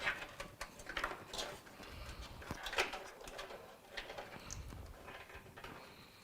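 Scattered light clicks, taps and scrapes of computer hardware being handled inside a PC case while a power supply is swapped.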